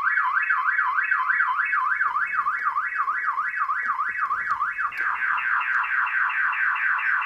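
Directed DS4WS wireless car-alarm siren going into full trigger: an electronic siren that starts suddenly with a rising-and-falling warble about three times a second, then about five seconds in switches to a faster sweeping tone of about six a second. It is sounding because its Bluetooth link to the DS4 security system was lost when the system's power was cut.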